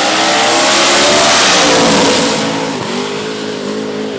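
Drag-racing cars at full throttle, engines revving with the pitch climbing, then falling away about two seconds in and settling to a steadier note.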